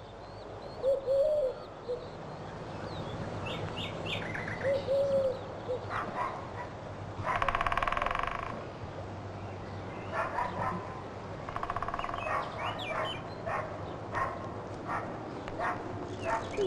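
Birds chirping and a dog barking now and then, with one longer, louder call a little over seven seconds in.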